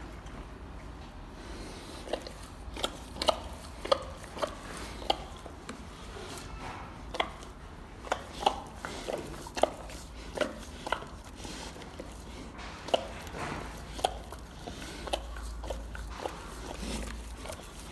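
Sun bear licking and eating fruit and bread from a cardboard box through cage bars with its long tongue: irregular sharp smacking clicks, up to about two a second, over a steady low hum.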